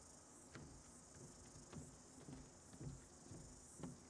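Near silence: a faint steady high hiss with a dozen or so soft knocks and thuds as people shift about at the lectern microphone.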